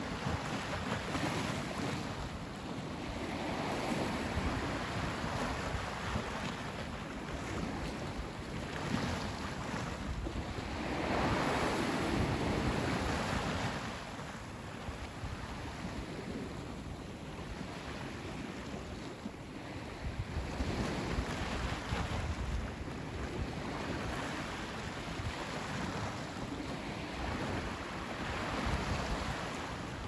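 Small waves washing onto a sandy beach, swelling and falling back, loudest about eleven seconds in, with wind rumbling on the microphone.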